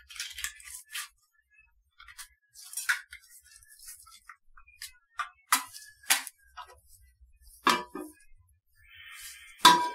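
Safety match and matchbox being handled and the match struck against the box: a series of short scratching strokes and clicks with quiet gaps between them. Near the end gas starts to hiss as the lit match is held to the stove burner, with one sharp loud stroke.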